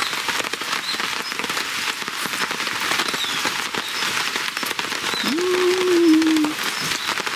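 Steady rain falling on the camping tarp overhead, a constant hiss full of small drop ticks. About five seconds in, a person gives one short hummed "mm" while eating.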